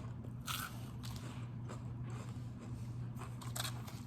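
Crunchy chewing of a crisp battered onion ring, a few crackling bites with the loudest about half a second in, over a steady low hum.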